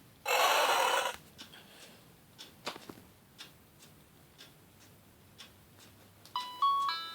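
A children's sound book's electronic sound chip plays a short, noisy sound effect lasting about a second, then light clicks and taps of the book being handled, and near the end a beeping electronic melody starts.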